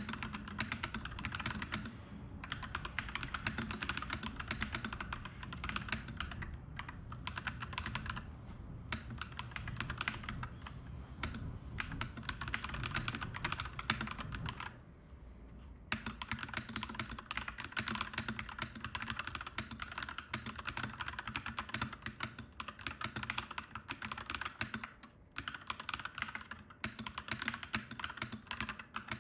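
Fast typing on a clacky mechanical keyboard, a dense run of key clicks that breaks off for about a second and a half near the middle, then resumes.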